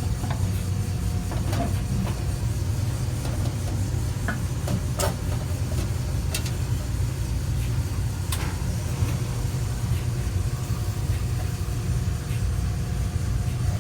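Steady low machinery rumble with a few short, light clicks and knocks, about five over the stretch, as a dryer drive belt is worked back onto its pulleys.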